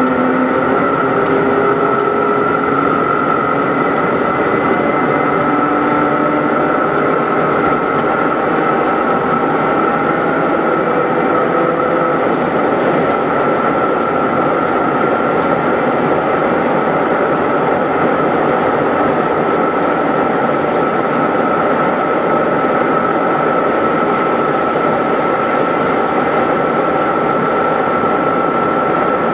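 Inside the cabin of a BMW E90 325i race car at full throttle: its straight-six engine running hard, with loud wind and road noise as the speed climbs past 200 km/h. The engine's pitch rises in the first few seconds, then settles under a steady high whine.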